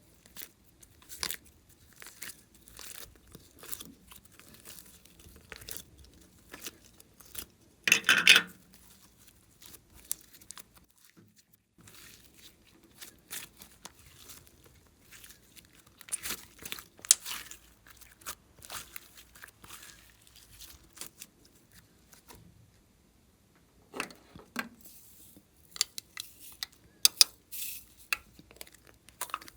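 Glossy slime being worked by hand, pressed, stretched and folded, giving irregular sticky clicks and crackles. The loudest burst comes about eight seconds in, there is a short lull around eleven seconds, and the clicking grows busier near the end.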